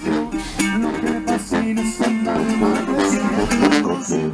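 Live norteño-style band playing: an accordion carries the tune over a strummed bajo sexto and a tuba bass line, with a steady rhythm.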